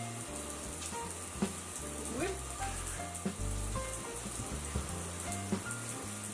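Water hissing from a handheld shower onto a dog in a bathtub, under background music of short stepping notes with a bass line.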